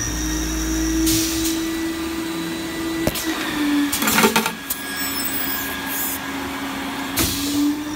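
Vacuum needle seeder for tobacco float trays running: a steady motor hum, with short bursts of air hiss about every three seconds as the needle bar cycles, and a cluster of clicks from the mechanism near the middle.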